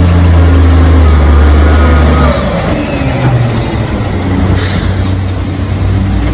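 Rear-loading garbage truck's diesel engine running loud and steady as the truck drives past, easing off after about two seconds. Two short air-brake hisses come near the middle.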